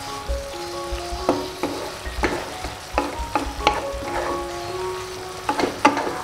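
Wooden spatula stirring a sizzling stir-fry of button mushrooms, green beans and sausage in a stone-coated wok: about a dozen quick scrapes and clacks over a steady frying hiss, with a cluster of strokes near the end. Soft background music plays underneath.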